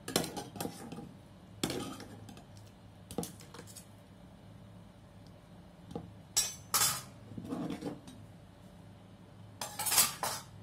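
Steel ladle clinking and scraping against a metal saucepan and wire-mesh strainer as half-boiled ivy gourd pieces are scooped out and drained; scattered clinks and knocks, the loudest near the end as the strainer is lifted off the pot.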